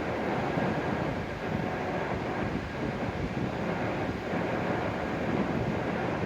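Steady, even rumble and hiss of a W7 series Shinkansen train at the station platform.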